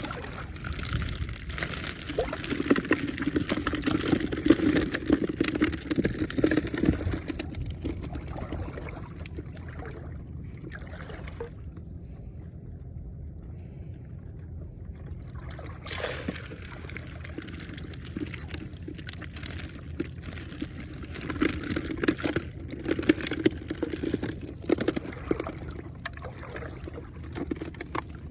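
Water splashing and sloshing in uneven bursts, busier for the first several seconds and again in the second half, with a calmer stretch between.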